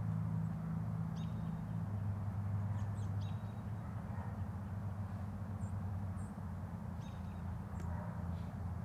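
Birds chirping, a few short high calls scattered through, over a low steady hum.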